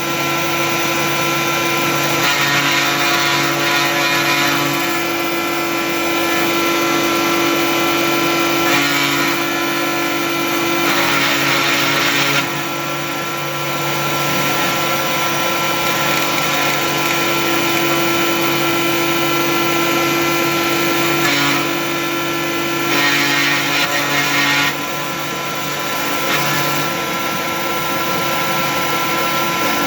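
Home-made cyclone vacuum for a CNC 3018 desktop router running together with the machine's motors: a steady motor whine under a constant rush of air. Several louder stretches of hissing noise, each lasting one to a few seconds, come and go.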